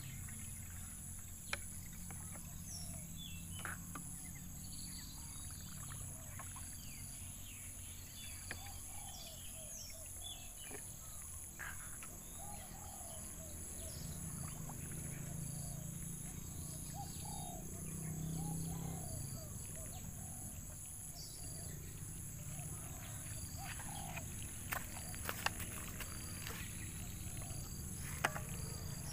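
Outdoor insect chorus: a steady high trill pulsing evenly, with scattered short bird chirps and a few sharp clicks.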